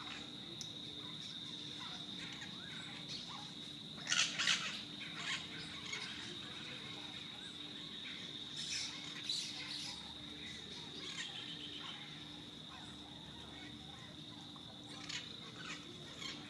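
Parrots giving harsh squawks in a few short bouts, the loudest about four seconds in, over a steady high-pitched insect trill.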